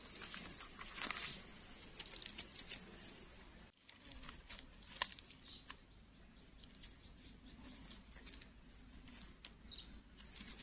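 Faint rustling and crackling of dry leaf litter and twigs under gloved hands picking mushrooms, with scattered sharp clicks and a brief drop-out a little under four seconds in.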